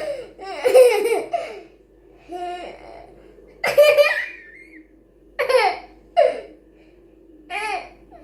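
A young child laughing in six or seven short high-pitched bursts, each falling in pitch, with short pauses between them.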